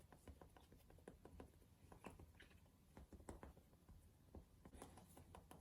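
Near silence with faint, irregular soft taps, a makeup sponge (beauty blender) dabbing against the skin to smooth out bronzer.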